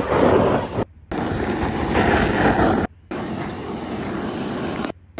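Butane blowtorch flame rushing steadily over a grill, broken by three brief drop-outs.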